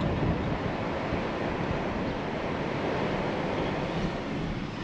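Steady road and wind noise from inside a moving vehicle: an even rushing sound with no distinct engine tone.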